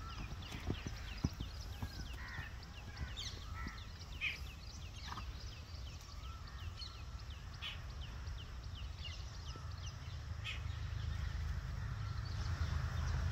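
Birds chirping in many short, quick falling notes over a steady low rumble that swells near the end. A few soft knocks in the first second or so fit a horse's hooves stepping on sand.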